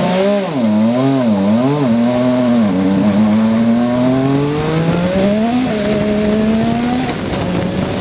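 Formula One car's engine heard from onboard: the revs are blipped up and down about three times, then climb steadily as the car pulls away. The pitch falls back sharply twice, once just past halfway and again about a second and a half later, rising again after each drop.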